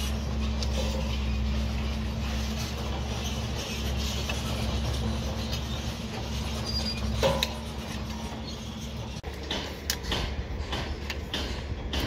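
Steady low drone of an engine running on the site, with a hoe scraping and chopping into dry soil and one loud knock about seven seconds in. About nine seconds in the drone gives way to a string of sharp knocks as hoes chop the ground.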